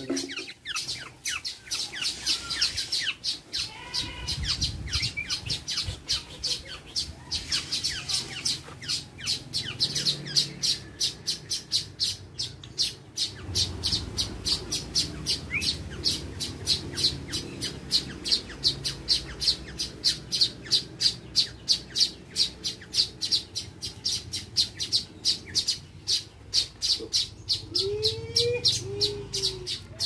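Young black-naped oriole calling over and over in short, sharp notes, about three a second, begging as it is hand-fed.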